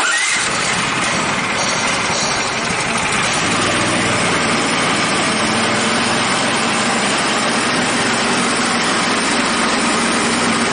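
Portable band sawmill running: its engine and saw going at a steady, even level, starting abruptly.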